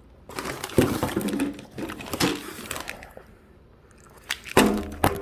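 Crackling and crunching from snack food and its crinkly packaging being handled, in a dense run of sharp crackles over the first few seconds. A short pitched sound comes near the end.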